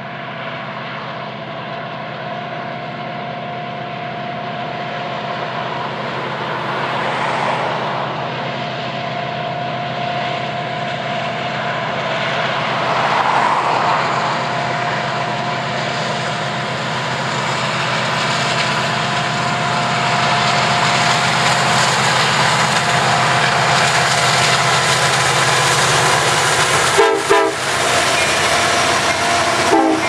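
Union Pacific manifest freight train approaching, its locomotive horn sounding in long held blasts over the diesel rumble, which grows steadily louder as the train nears. Near the end the locomotives pass close by and boxcars begin rolling past.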